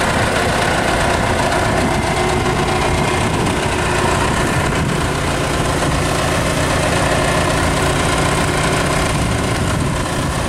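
Iseki TA-C55 crawler tractor's diesel engine idling steadily.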